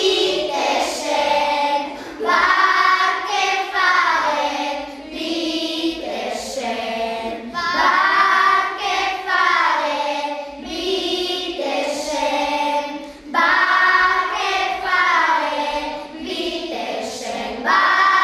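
Children's choir singing a song in phrases of a few seconds, with short breaks between them.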